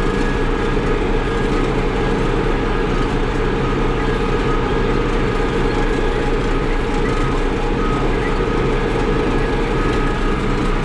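Tractor engine running steadily under way, with a faint steady whine above the engine note.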